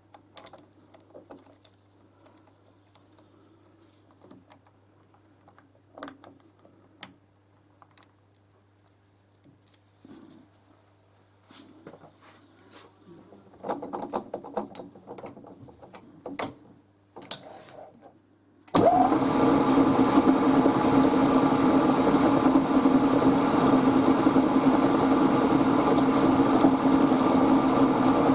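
Quiet clicks and knocks of small parts being handled. About two-thirds of the way in a machine motor starts with a brief rising whine and runs on loud and steady, a steady hum mixed with rushing noise.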